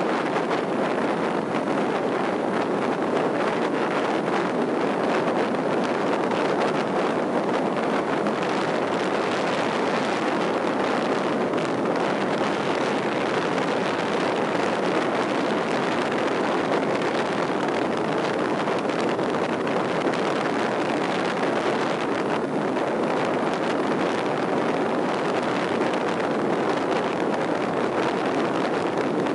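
Steady rushing noise of a vehicle travelling at speed, with wind over the microphone and no change throughout.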